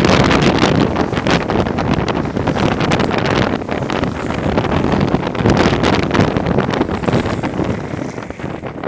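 Wind buffeting the microphone over the rolling roar of longboard wheels on asphalt at downhill speed, with scattered short clicks and scrapes. The noise starts to fade near the end.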